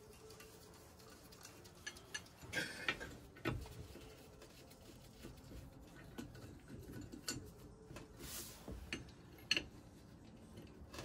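Faint, scattered clicks and clinks of a steel spanner working on the nuts of a rusty Lister Q type vaporiser body, a few irregular taps of metal on metal.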